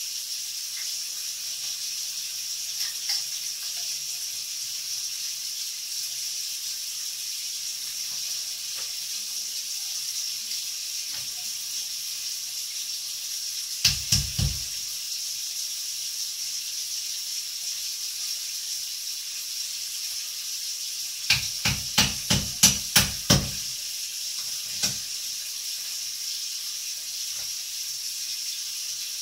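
Food sizzling steadily in a pan, a constant high hiss. Sharp knocks cut through it: a couple about halfway, then a quick run of about seven some two-thirds of the way in.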